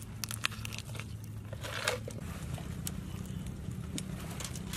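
Hands stuffing green herbs and vegetable stalks into a raw whole chicken: crunching and crackling of leaves and stalks, with scattered sharp clicks, over a low steady hum.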